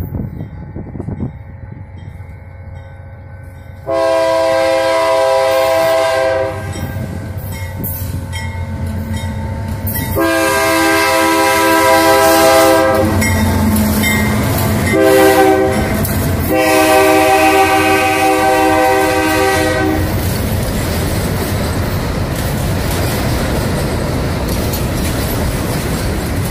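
Diesel freight locomotive's multi-tone air horn sounding four long blasts as the train comes by, the last two almost run together. The horn then stops, leaving the steady rumble and clatter of loaded hopper wagons rolling past on the rails.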